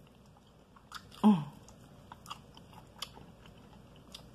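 A person biting and chewing a crispy fried chicken drumstick close to the microphone: scattered small crunches and mouth clicks. About a second in, a short hum that falls in pitch is the loudest sound.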